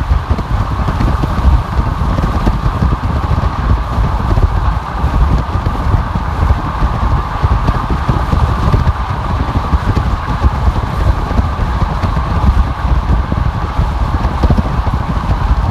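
A car driving on a freeway: steady road and tyre noise with a heavy low rumble, the loudness flickering unevenly like wind buffeting.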